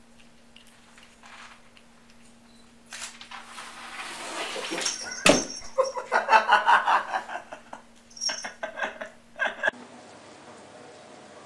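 A sharp thump, then a person laughing in short bursts over a steady low hum.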